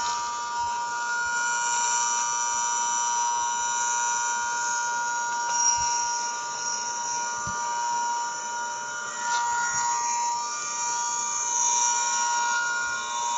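Emergency Alert System attention signal: a steady electronic alarm made of several held tones, briefly breaking up about nine seconds in.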